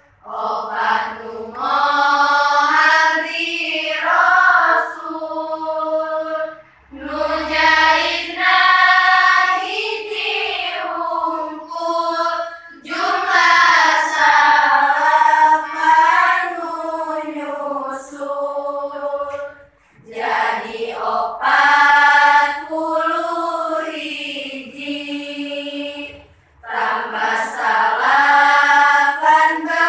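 A class of girls chanting a nadom, Islamic teaching verse, together in unison. They sing a repeating melody in phrases of about six seconds, with short breaks for breath between them.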